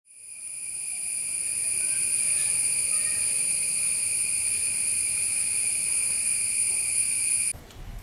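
Steady high-pitched insect trill, unbroken and unchanging, that fades in at the start and cuts off abruptly near the end.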